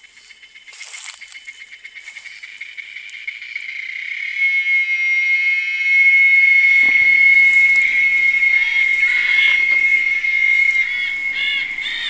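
Steady high-pitched insect drone that swells over the first few seconds, with a rougher low noise joining about seven seconds in and short chirping calls near the end.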